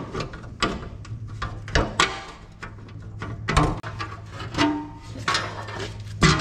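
A metal mulch plate knocking and clanking irregularly against a stump grinder's frame as it is shifted by hand to line up its bolt holes. A steady low hum runs underneath.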